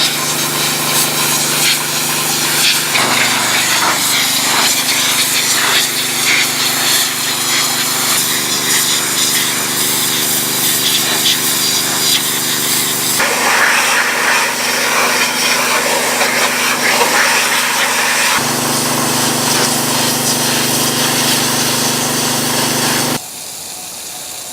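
Gas-engine pressure washer running steadily under the hiss of its high-pressure spray. The sound shifts abruptly a few times and drops quieter near the end.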